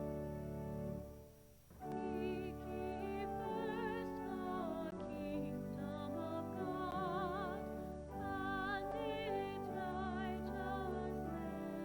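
Classical-style music for the service: a solo voice with a wide vibrato, in an operatic manner, over a sustained accompaniment. It breaks off briefly about a second in and then resumes.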